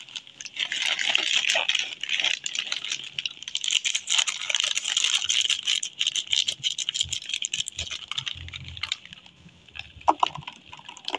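Plastic snack packet crinkling steadily as it is handled and cut open with scissors. Near the end, corn-puff balls tumble out onto a cardboard box with a few light clicks.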